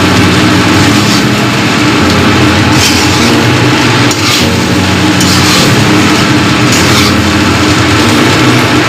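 Fried rice stir-frying in a steel kadai: a steady, loud rushing sizzle, with steel spatulas scraping against the pan several times.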